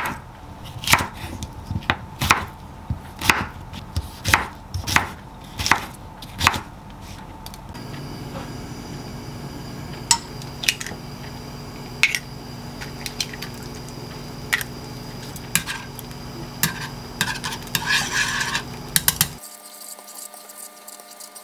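Chef's knife chopping a cucumber on a wooden cutting board, even knocks about two a second for the first seven seconds. Then a frying pan on a gas burner, with scattered light clinks and knocks of pan and utensils, and a quieter stretch near the end as eggs are stirred in the pan with chopsticks.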